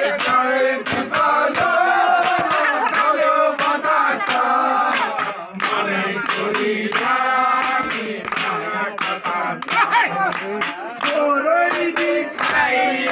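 A group of people singing a Nepali folk song together, the song sung at the kitchen-raising custom of village feasts, with hand claps keeping the beat.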